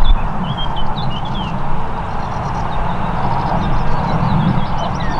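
Steady, distant rumble of a Ryanair Boeing 737 MAX 8's CFM LEAP-1B jet engines as it sits on the runway at the start of its takeoff. Small birds chirp over it, most clearly in the first second and a half.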